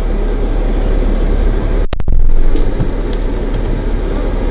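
Steady low rumble and hiss inside a running car, with a very brief dropout about two seconds in.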